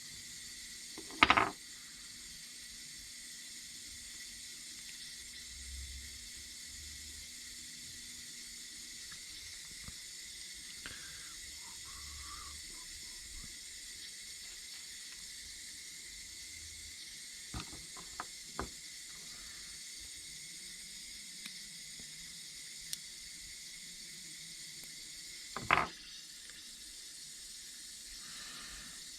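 Steady faint hiss of water running through a household water softener as it cycles. Two sharp knocks, about a second in and near the end, and a few light ticks between them.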